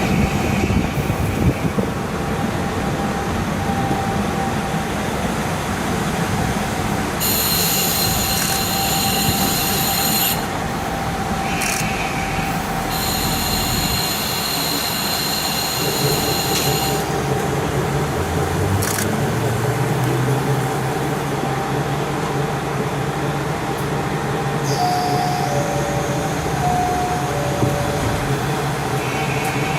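KiHa 40 diesel railcar running, heard through a fully open window: a steady rumble of wheels on rail and the diesel engine. A high-pitched wheel squeal comes twice, at about 7–10 s and again from about 12 to 17 s. From about 16 s a deeper engine note comes through.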